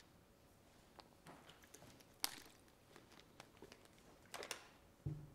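Faint, scattered clicks and taps of a laptop's keys and touchpad being worked in a quiet room, one sharper click about two seconds in and a quick cluster past four seconds, with a brief low sound near the end.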